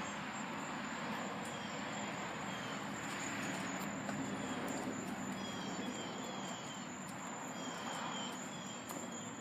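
Outdoor park ambience: a steady rumble of distant traffic, a thin high insect drone held on one pitch, and short chirping bird calls repeating every second or so.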